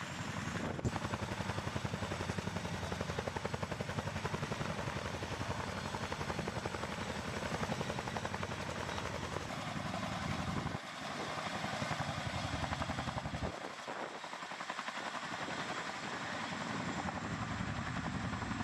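Boeing CH-47 Chinook tandem-rotor helicopter running close by as it lifts and carries a slung vehicle load, its rotor blades chopping in a fast, even pulse. The deep rumble thins out briefly about eleven seconds in and again a little before fourteen seconds.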